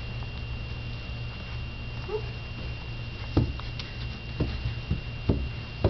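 A toddler crawling up carpeted stairs, his hands and knees knocking on the treads: about five short soft thumps in the second half, over a steady low hum.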